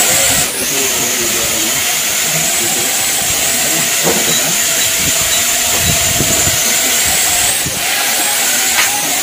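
Small foam toy quadcopter drone in flight: its four guarded propellers and motors give a steady high whirring hiss, dipping briefly about half a second in and again near the end.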